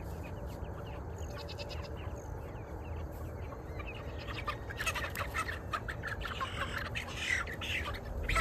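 Young meat chickens peeping and cheeping in short high calls, growing busier and louder about halfway through.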